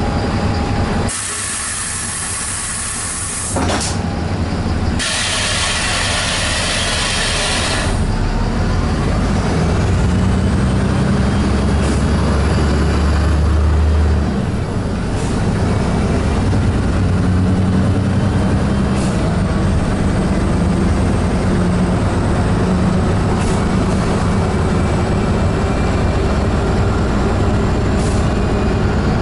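Cabin noise inside a moving bus: steady engine and road rumble, with two loud bursts of air hissing in the first eight seconds and a faint rising whine after them.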